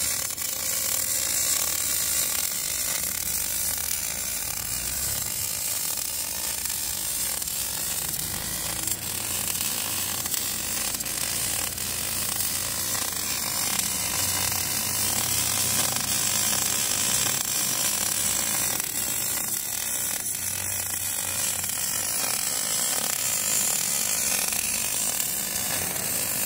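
Gas-shielded MIG/MAG welding arc of an orbital pipe-welding carriage running a weld on a steel pipe: a steady hiss.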